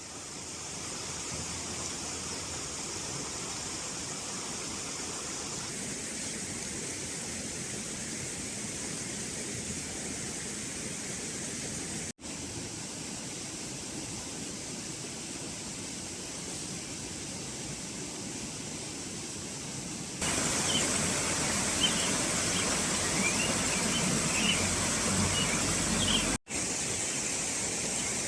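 Steady rush of flowing water, like a mountain stream. It drops out briefly twice and gets louder about two-thirds of the way in, where faint short high chirps show over it.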